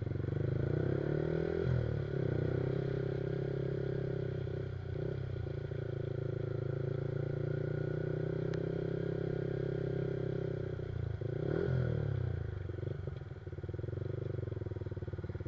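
Yamaha R15 motorcycle with an aftermarket Akrapovic exhaust running at a steady cruise, its single-cylinder engine note holding even, then the revs dropping and climbing again about three-quarters of the way through.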